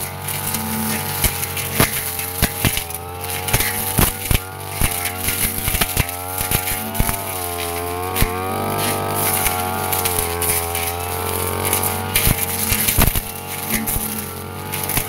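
Backpack brush cutter's small engine running under load while cutting grass and undergrowth. Its pitch sags and recovers a few times in the middle, and sharp ticks of the blade striking stalks and debris come throughout.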